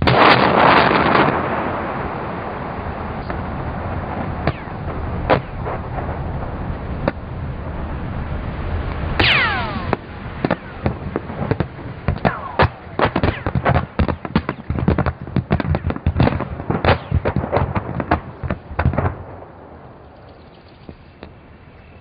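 A large demolition blast of roughly 100 tons going off: a loud boom that rolls on as a long rumble. About nine seconds in comes a falling whistle, then a rapid run of sharp cracks and pops that lasts until about nineteen seconds and dies away.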